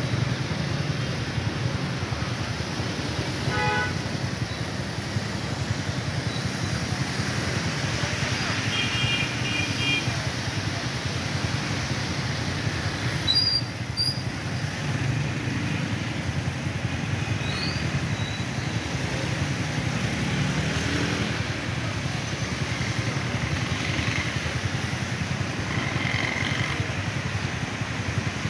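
Motorcycles and auto-rickshaws driving through a flooded street: a steady wash of engine noise and tyres ploughing through standing water, with a few brief horn beeps.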